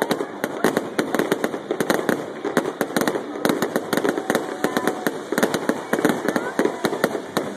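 Aerial fireworks going off in a dense barrage: rapid bangs and crackling, many reports a second with no let-up.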